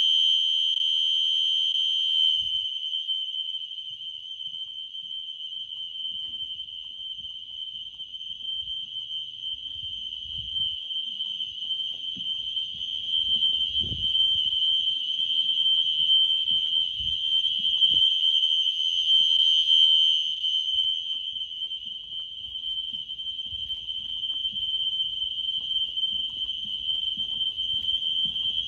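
System Sensor SpectrAlert Classic fire alarm horns sounding a continuous steady high-pitched tone, set to steady rather than temporal-3 pattern. Their loudness swells and dips, and there are faint low thumps underneath.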